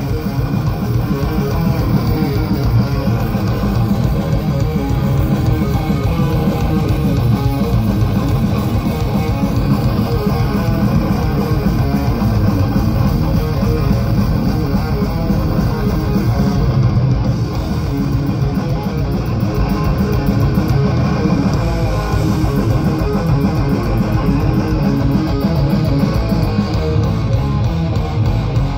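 Live thrash metal band playing: distorted electric guitars, bass guitar and drums, loud and dense, without a break.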